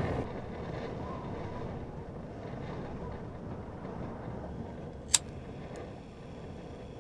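Steady low rumbling noise, with one sharp click about five seconds in.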